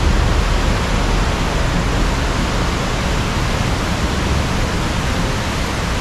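Wide river's white-water rapids and falls rushing, a loud steady roar of water.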